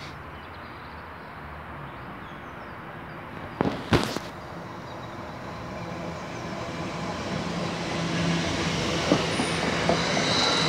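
Passenger train approaching along the line and running past close by, its wheel-on-rail and running noise growing steadily louder. Two sharp knocks about four seconds in.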